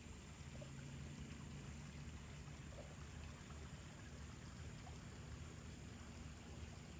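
Small woodland creek flowing over a shallow riffle: a faint, steady murmur of running water.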